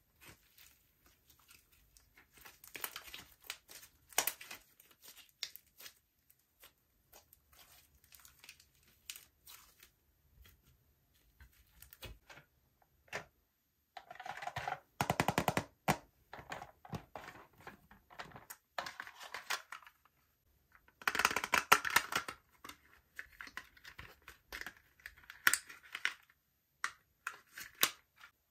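Slime being worked by hand: irregular sticky clicks and crackling pops, sparse at first, with two dense bursts of crackling about halfway through and again about three quarters of the way through.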